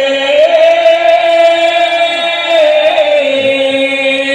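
A crowd of guests holding one long, loud drawn-out toast cheer in unison, a steady chanted note that lifts slightly about half a second in.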